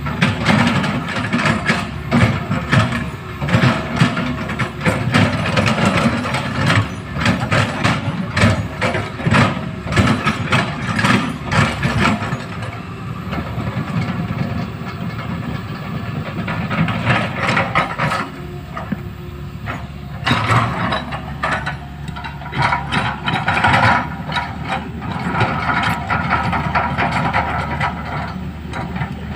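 Large hydraulic excavator's diesel engine running under load, with frequent metallic clanks and knocks over the first half that thin out later.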